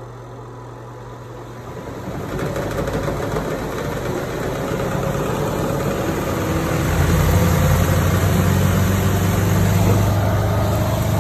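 FRIFER twin-tub washer's motor starting up and running: a low drone that builds over the first several seconds, then holds steady.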